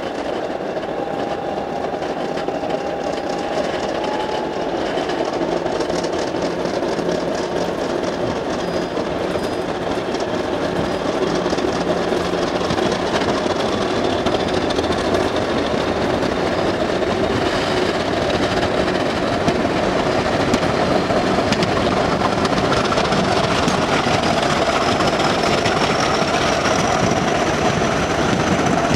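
Diesel-hauled passenger train running; the locomotive's engine note slowly rises in pitch and grows louder throughout.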